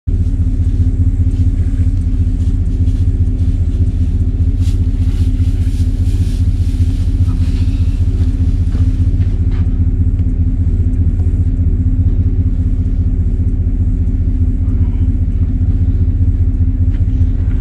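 Pickup truck engine idling: a steady low, fast-pulsing rumble, with scattered light clicks and rattles in the first half.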